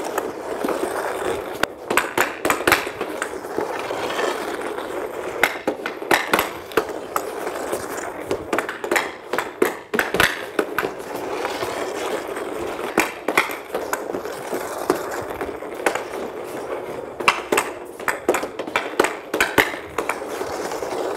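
Hockey stick and puck worked on a synthetic-ice surface: a steady scraping hiss of the blade and puck sliding, broken by many sharp clicks of stick on puck at irregular intervals.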